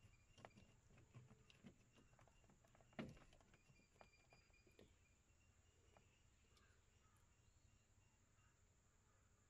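Faint clicks and taps of hands working the plastic inner door-handle trim and reaching into its recess in the door panel, with one sharper knock about three seconds in; the clicks thin out after about five seconds.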